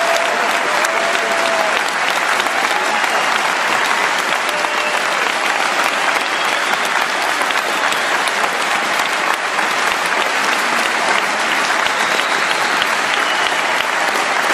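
Large arena crowd clapping and cheering steadily, with a few shouts and whistles standing out above the applause.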